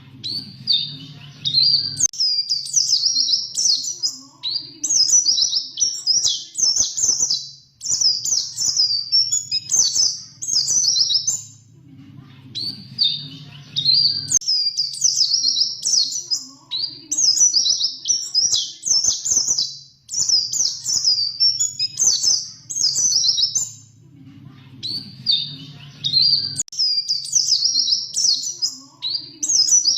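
White-eye (pleci) singing a fast, high-pitched twittering song in long rolling runs, broken by a few short pauses. A faint low hum shows in the pauses.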